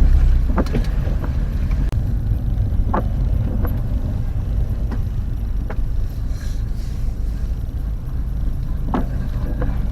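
Car on the move, its engine and road rumble steady and low as heard inside the cabin, with a few short knocks or rattles.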